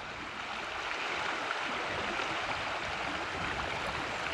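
River water rushing and burbling steadily over the riffles of a shallow stream.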